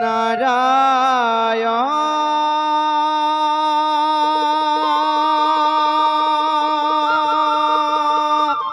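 Male singer in an Assamese Bhaona devotional song: an ornamented, wavering phrase, then one long note held steady for about six seconds before it breaks off.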